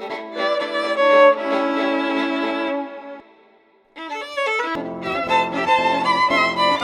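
Violin music: held, bowed notes die away about three seconds in, and after a brief near-silence a new passage starts, with low bass notes joining in soon after.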